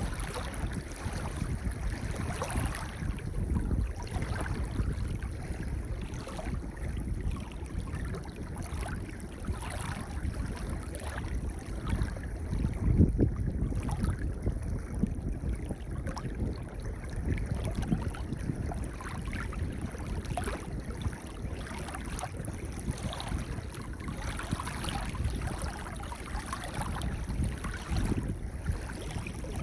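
Gentle ocean waves washing onto a pebble beach: a steady wash with many short clicks, and swells that rise and fall, the loudest about halfway through.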